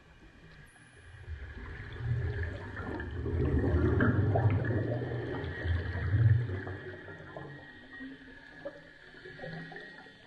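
Underwater gurgling rumble of air bubbles from a scuba diver's breathing gear. It builds over a couple of seconds, stays loud for several seconds, then fades.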